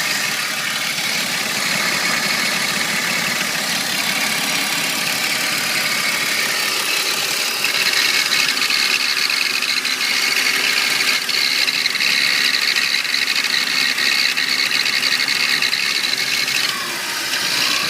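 A 1998 BMW 328i (E36) straight-six engine running at idle with the rattling noise from the engine that the owner is asking about. He says it is loudest with the AC on and suspects some kind of bearing. The sound gets louder about eight seconds in and dips briefly near the end.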